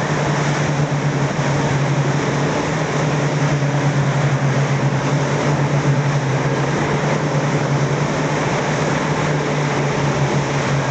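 A boat's outboard motor running at a steady speed: a constant low hum over a steady rushing noise.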